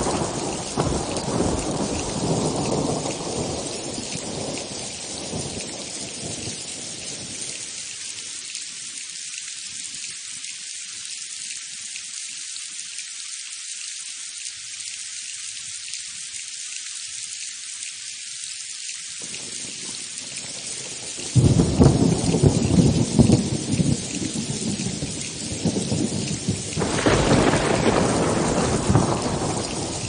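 Steady rain falling during a thunderstorm. A rumble of thunder dies away over the first several seconds; about two-thirds of the way through a sudden loud thunderclap breaks and rolls on, and another rumble swells up near the end.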